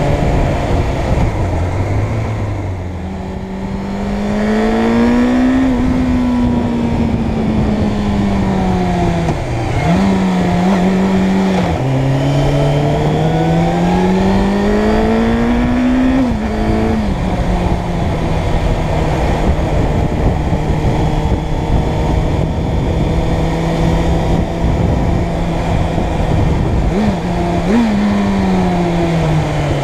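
Suzuki Bandit 600's inline-four engine running under way, its note rising and falling with the throttle. It runs low and quieter for a couple of seconds near the start, pulls up with sudden drops in pitch at gear changes, holds a steady note for about ten seconds, then gives two quick rises and falls away near the end as the bike slows.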